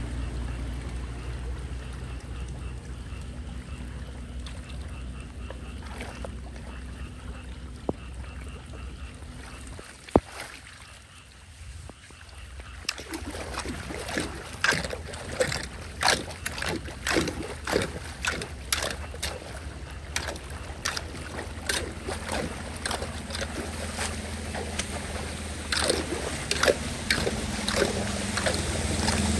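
Floodwater draining into a clogged street drain, a steady low rush at first. From about halfway on come repeated splashes and scrapes as a small hand rake drags debris off the drain opening under the water.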